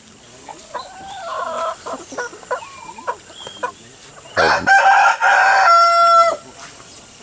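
Chickens clucking softly, then a rooster crowing loudly a little past halfway: one long crow of about two seconds that ends on a held note.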